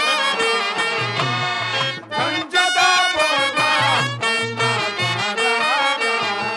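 Stage-drama music: a male voice singing a drawn-out verse in long, bending phrases over instrumental accompaniment with a repeating low beat.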